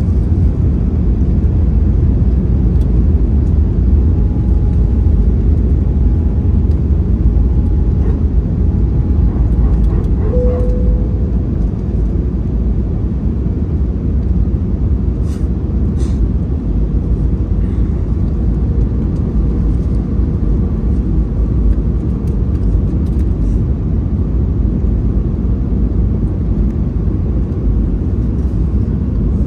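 Steady, loud low cabin roar of an Airbus A320-214 on approach: its CFM56 engines and the rush of air over the fuselage, heard inside the cabin from a seat behind the wing. A faint hum runs under it, and a few light clicks come about fifteen seconds in.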